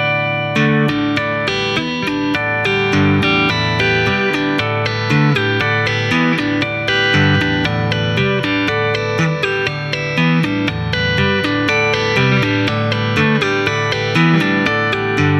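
Electric guitar laid flat on the lap and played by two-handed tapping on the fretboard: a steady stream of quick ringing notes, about four or five a second, over a moving line of lower notes.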